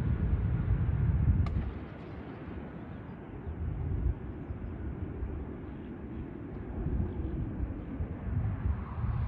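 Low, gusty outdoor rumble of wind buffeting the microphone over distant jet aircraft engine noise, louder for the first second or so and then easing, with a small click early on.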